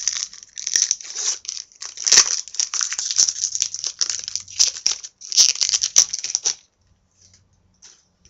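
Card-pack wrapper crinkling and tearing as it is ripped open by hand, in irregular crackling handfuls that stop about six and a half seconds in.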